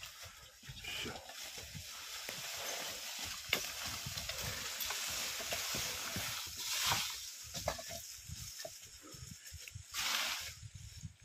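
Dry leaves and brushwood rustling and crackling as a harnessed draft horse walks through them, with dull low thumps throughout. A louder rustle comes about ten seconds in.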